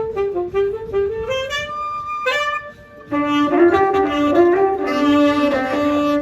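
An amateur band's wind instrument playing a slow melody line on its own. After a brief pause about three seconds in, several instruments join and play together with held notes.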